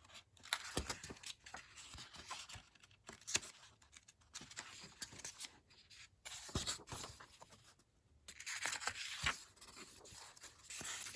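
Pages of a coloring book being turned by hand: irregular paper swishes and rustles, with a few soft taps.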